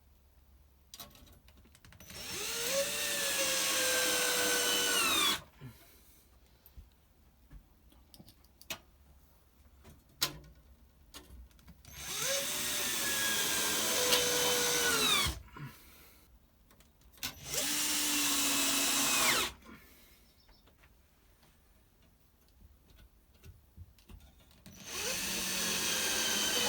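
Cordless drill-driver driving screws in four runs of about two to three seconds each. The motor pitch rises as it spins up, then sags as each screw bites and seats, before it stops. Light clicks and knocks of handling come between the runs.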